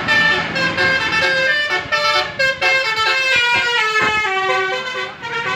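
Indonesian bus telolet horn playing a quick melody of short stepped notes, the tune running downward in the middle.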